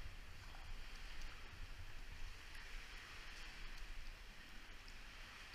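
Sea water washing and dripping inside a sea cave: a steady hiss with faint drips and splashes over a low rumble.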